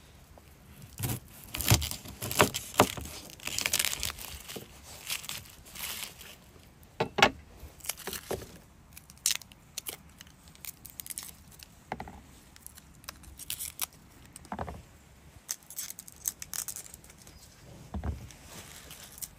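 A head of garlic is cracked apart with a knife on a wooden board, giving several sharp knocks in the first few seconds. Then the papery garlic skins crackle and tear as the cloves are peeled by hand, and near the end a clove knocks lightly into a wooden bowl.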